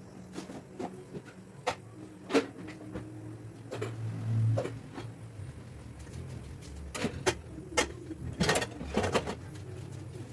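Scattered light clicks and knocks of objects being handled and set down, bunched in the second half, with a brief low hum about four seconds in.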